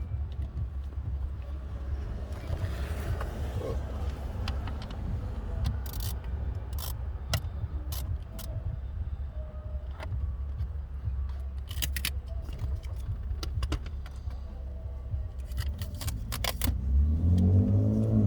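Steady low rumble with scattered sharp metallic clicks and light rattles. About a second before the end, a pitched tone with several overtones rises in and then holds.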